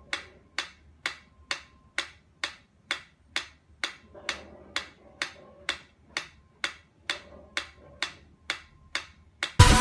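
Mechanical pyramid metronome ticking at a steady beat, a little over two ticks a second. Loud music cuts in near the end.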